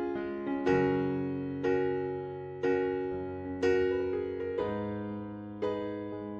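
Background music: piano chords struck about once a second, each dying away before the next.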